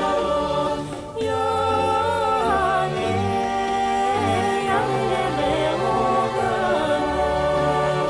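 Bulgarian northern folk song: several voices singing together in long held, wavering notes over instrumental accompaniment with a pulsing bass line. The music dips briefly about a second in.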